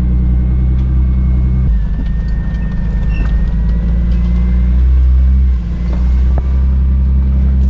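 Jeep engine running at low, steady revs while driving slowly, heard from inside the vehicle. Its note shifts a few times as the load changes, and a faint high whine sits over it.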